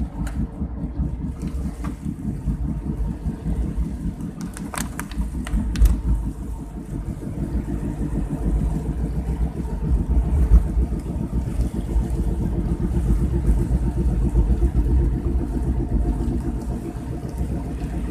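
Car driving over a wet road in heavy rain: a steady low rumble of engine and tyres, with a few sharp clicks about five to six seconds in.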